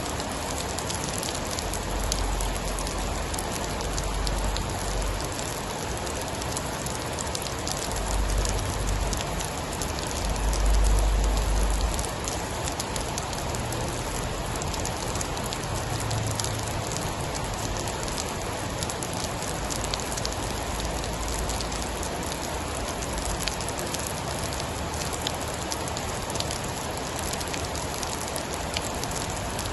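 Steady rain with scattered sharp drop ticks. A deep low rumble swells several times underneath, loudest about eleven seconds in.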